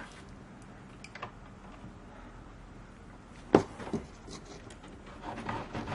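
Pliers with plastic-tubed tips working a winding rod out of a freshly wound copper wire coil: scattered small clicks and one sharp metallic click about three and a half seconds in, then a busier scraping and rattling near the end.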